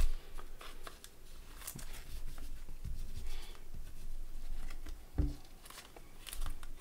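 Trading cards being handled and set down on a tabletop: soft rustles, slides and light taps, with a sharper knock about five seconds in.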